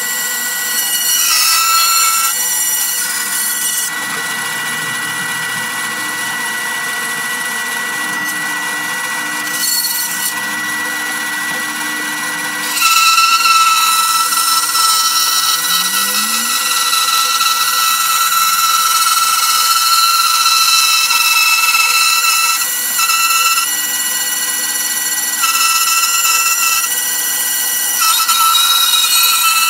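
Bandsaw running, its blade cutting a curve through a wooden board. The motor whine is steady, and the cutting grows louder about a third of the way in, easing off briefly a few times as the board is turned.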